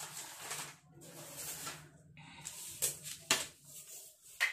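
Sheet of paper rustling and sliding on a wooden table in several short spells, then a few sharp taps as a plastic ruler is laid down on it.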